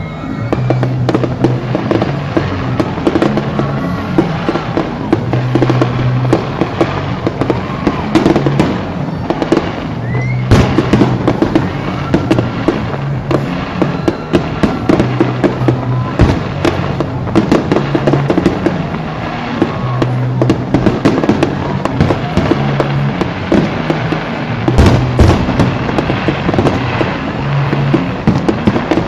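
Fireworks going off: dense, irregular bangs and crackles from bursting shells, throughout, over music with a repeating bass line.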